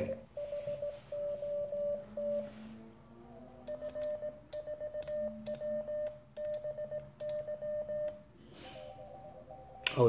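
Morse code (CW) tones from a Weber Soda Pop transceiver's small speaker: a steady beep keyed on and off in dots and dashes. From about four seconds in the keying is faster and comes with sharp clicks from the brass paddle key, and near the end a second, slightly higher-pitched station is heard.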